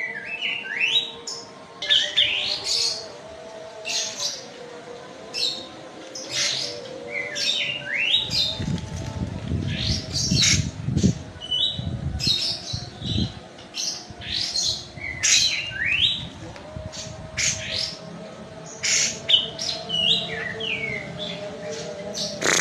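Kapas tembak (olive-winged bulbul) singing a busy run of sharp chirps and quick whistled notes that slide up and down. A low rumble runs under the song from about 8 to 14 seconds in.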